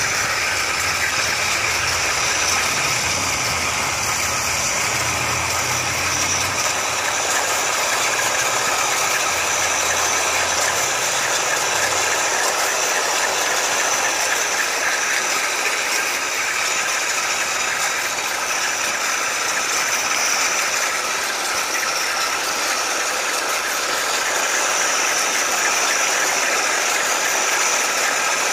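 A 3D-printed RC tank driving, its small electric drive motors and gearboxes whirring while the printed plastic track links rattle over the tarmac in a steady mechanical clatter. A low hum underneath drops away about twelve seconds in.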